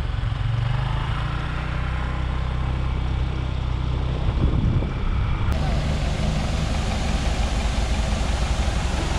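Motorbike engine running steadily under way, with road and wind noise. About five and a half seconds in, the sound changes abruptly to a hissier street sound with a jeepney's engine idling close by.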